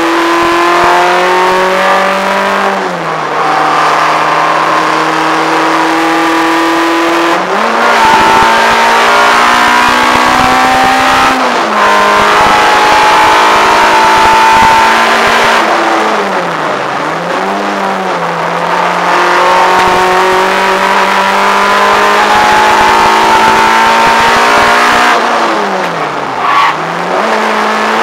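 Peugeot 106 GTI's 1.6-litre 16-valve four-cylinder on Jenvey individual throttle bodies, heard from inside the cabin, driven hard on track. Its pitch climbs in long steady pulls, broken several times by gear changes where the note drops or jumps and dips briefly before climbing again.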